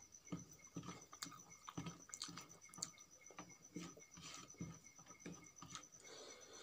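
Fingers mixing rice with tomato chutney on a metal plate: soft, irregular wet squishes and light taps, two or three a second.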